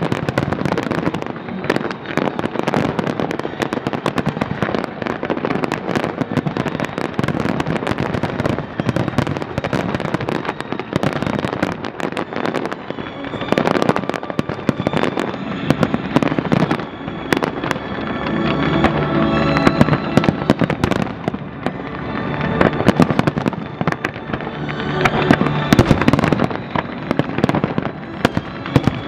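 Fireworks display: a dense, unbroken barrage of aerial shells bursting and crackling, with music playing underneath that comes through more clearly in the second half.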